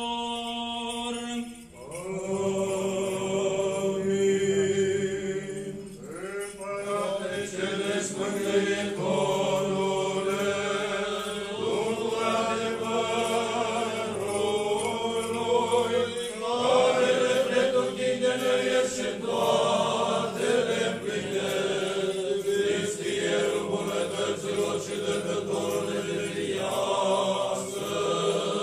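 Men's voices chanting an Eastern Orthodox liturgical hymn, a sung melody over a held lower note, in long phrases with short breaths between them.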